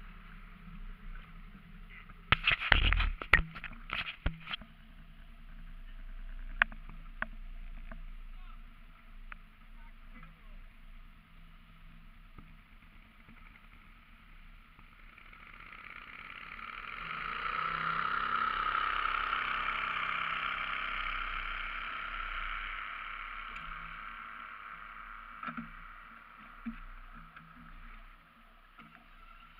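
A cluster of loud knocks and bumps a few seconds in, the camera and its mount being handled. Then a boat motor draws near and fades away over about ten seconds, its pitch bending as it passes.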